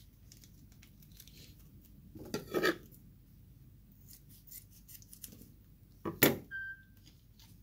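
Small foil-and-plastic seasoning sachets of chilli soy sauce being cut open with scissors: two sharp snips about four seconds apart, with light plastic rustling and clicks between them.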